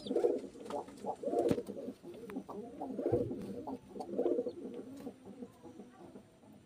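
Domestic pigeon cooing: a series of low, rolling coos, one after another, growing fainter near the end.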